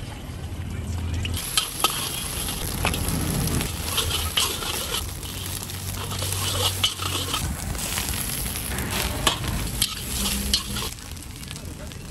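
Egg and vegetables sizzling in hot oil in a wok while a flat metal spatula stirs them, with sharp scrapes and clanks of the spatula against the wok every second or two. The sizzle gets quieter near the end.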